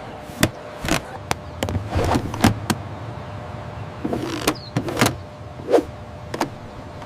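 A run of irregular sharp clicks and knocks, about a dozen, over a faint low hum.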